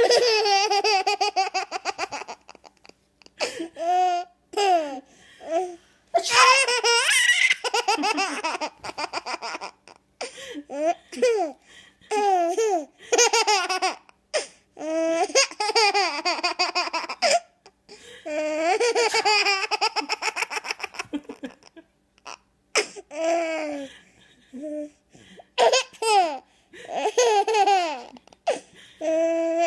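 A baby laughing in a long run of high-pitched belly-laugh fits, each a second or three long with short pauses between, laughing at its mother's sneezes.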